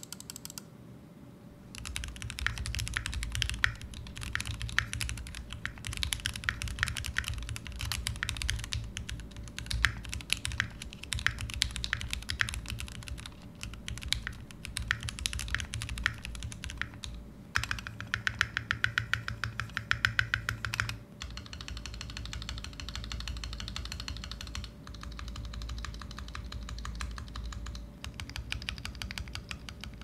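Keychron Q2 aluminium mechanical keyboard with Gateron Pro Red linear switches being typed on in fast, continuous runs of keystrokes, starting about two seconds in, with a couple of brief breaks. The long keys sit on factory-lubed screw-in stabilizers.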